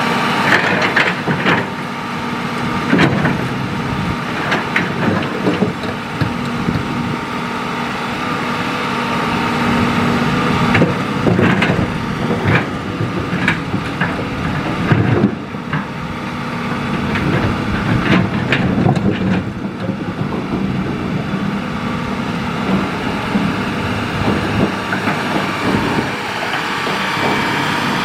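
Hitachi hydraulic excavator's diesel engine running steadily under load, with repeated knocks and clatters of the bucket working through stone and gravel fill.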